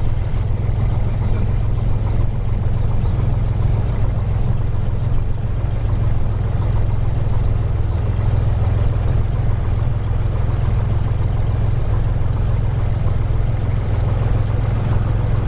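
Cessna 182 Skylane's six-cylinder piston engine and propeller running at low taxi power, heard from inside the cabin as a steady low drone.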